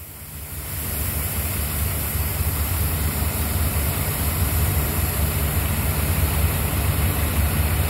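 Heavy diesel engine noise from port container-handling machinery: a steady low drone that swells up within the first second and then holds.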